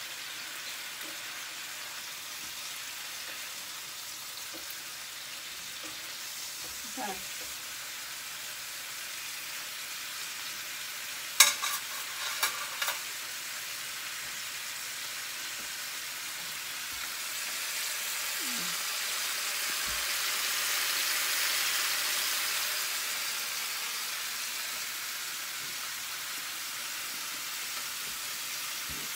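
Chicken pieces searing in a skillet, sizzling steadily as they brown, with the sizzle swelling louder for several seconds about two-thirds through. A few sharp clacks about eleven to thirteen seconds in.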